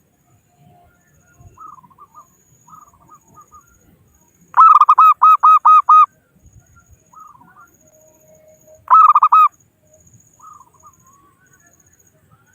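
Zebra dove (perkutut) calling: a loud, rapid run of about six staccato coos about four and a half seconds in, then a shorter burst of three near nine seconds, with fainter coos in between.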